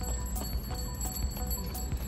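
Background music with a steady ticking beat, about three ticks a second, and sustained high tones, over a low rumble.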